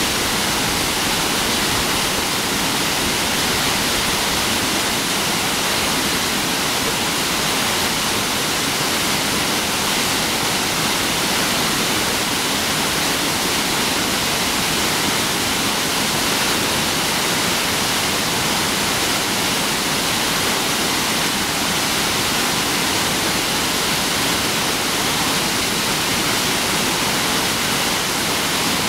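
Mountain stream running high after heavy rain: a steady, loud rush of water that does not change.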